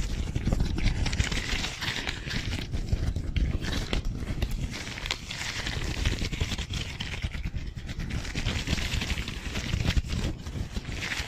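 Disposable-gloved hands rubbing, rustling and crinkling fast and close against a microphone: a continuous dense friction noise full of small crackles and soft low thumps.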